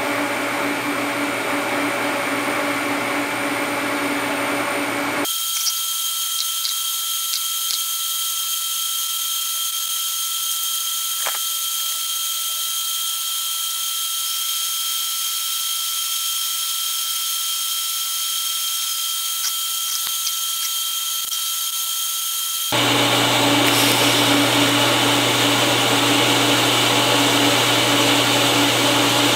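TIG welding arc on stainless steel: a steady electric hiss and buzz with a thin, high whine. It changes abruptly about five seconds in, going thinner with the low end gone, and again near the end, where it turns louder and fuller.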